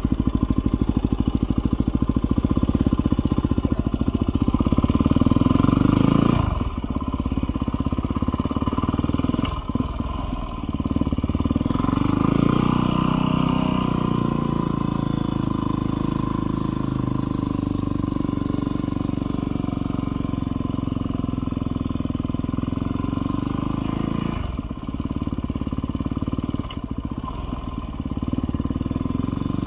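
Yamaha WR250R's 250 cc single-cylinder four-stroke engine pulling away and running at low speed through a course, with short breaks in the engine sound at gear changes: an upshift several seconds in and a downshift near the end.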